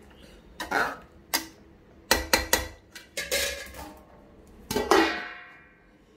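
A spoon scraping and knocking against a metal cooking pot while stirring thick chicken masala. Near the end a metal lid is set on the pot with a clang that rings out for about a second.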